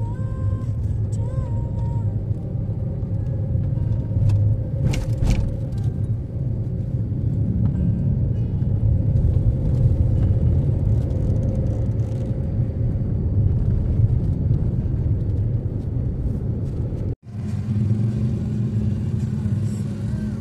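Suzuki Karimun Wagon R small hatchback driving on the road: a steady low rumble of engine and tyres, with a brief clatter about five seconds in.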